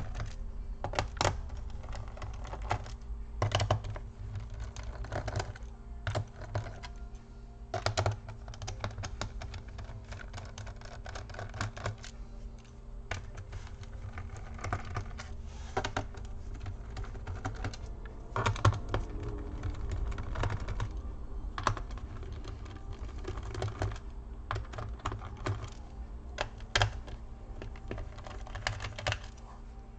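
A small screwdriver and hands working on a laptop's plastic bottom cover: irregular clicks, taps and light scrapes as the cover's screws are taken out.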